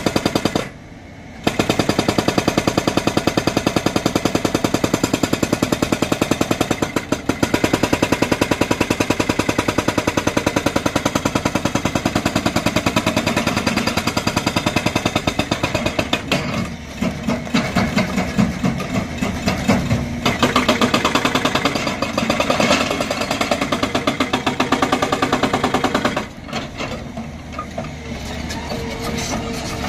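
Hydraulic rock breaker on a JCB tracked excavator hammering into a boulder, a fast, even run of heavy chisel blows. It stops briefly a few times and falls off near the end.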